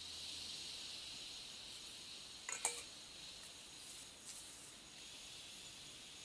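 A brief clink of crockery and utensils about two and a half seconds in, with a smaller click a couple of seconds later, over a faint, steady high-pitched hiss.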